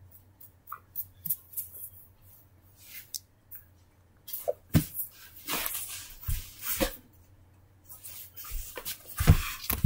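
Handling noise: soft rustling, scuffs and a few dull thumps as stuffed plush toys are moved over a carpet and someone shifts about close to the microphone. It is sparse at first and louder and busier in the second half.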